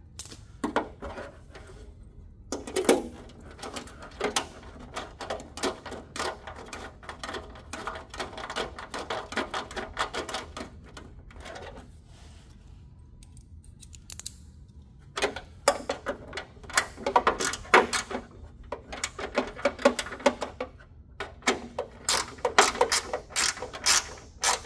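Mini ratchet with a short extension clicking in rapid runs as screws are snugged down, compressing their lock washers. The clicking stops for a few seconds about halfway through, then starts again.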